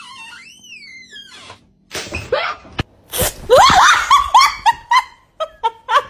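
A drawn-out, wavering whine, "eauweeeeh", that rises and then falls in pitch. It is followed by a run of loud, short shrieks, about eight of them in quick succession.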